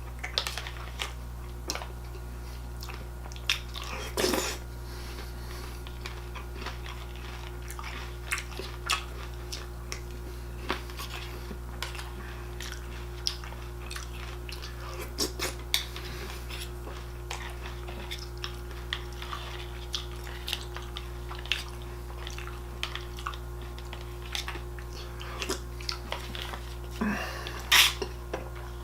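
Crunchy bran-and-raisin cereal being chewed, with a spoon clinking against the bowl: scattered short crunches and clicks, the loudest clink about a second before the end. A steady low hum runs underneath.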